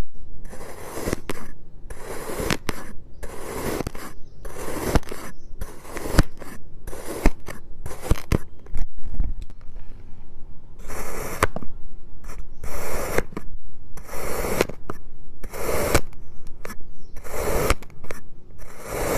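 Kinetic sand being cut and scraped with a blade: a series of hissing scraping strokes, about one or two a second, with a short lull about halfway through.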